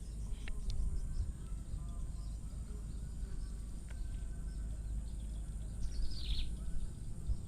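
Outdoor ambience at a fishing spot: a steady low rumble with a few faint ticks, and a short high bird chirp about six seconds in.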